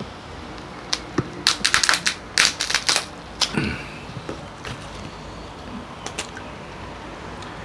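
Cooked king crab shell being snapped and cracked apart by hand: a quick series of sharp cracks lasting a few seconds, then a few faint clicks as the leg meat is pulled free.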